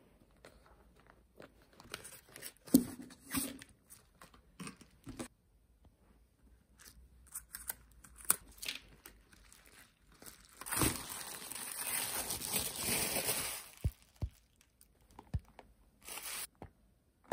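Unpacking IKEA ÖVERMÄTT silicone food covers: scattered taps and scrapes on the cardboard box, then a crinkling, tearing rustle lasting about three seconds from roughly ten seconds in, as the rolled silicone covers are freed and unrolled, with a short rustle near the end.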